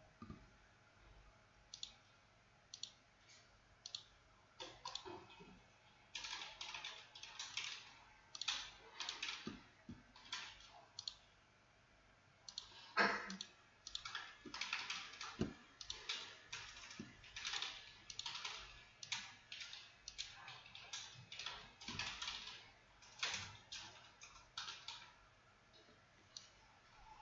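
Irregular clicking and typing on a computer keyboard and mouse, sparse at first and then in quick clusters, with one sharper click about halfway through.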